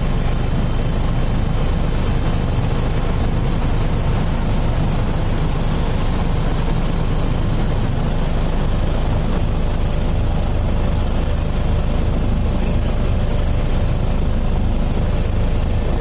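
Steady, loud aircraft engine noise heard from on board, unchanging throughout.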